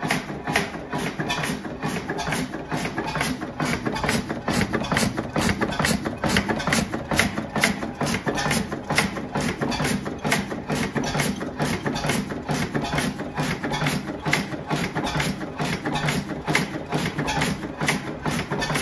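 Blackstone 3 hp single-cylinder vertical oil engine running steadily, making an even rhythm of sharp knocks a few times a second.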